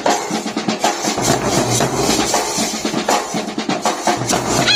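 Street band drumming: large bass drums beaten with padded sticks, joined by a snare drum, in a steady, even rhythm of strokes.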